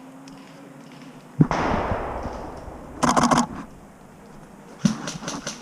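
Airsoft guns firing: a sharp crack with a hissing tail about one and a half seconds in, then a quick burst of rapid shots, and a second crack and burst of rapid shots near the end.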